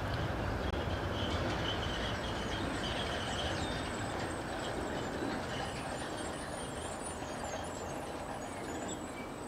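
Distant DÜWAG trams moving slowly on a curved track loop: a steady, even running noise with a few faint high tones.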